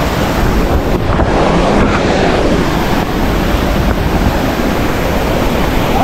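Waterfall rushing over rocks, a loud steady noise of falling water.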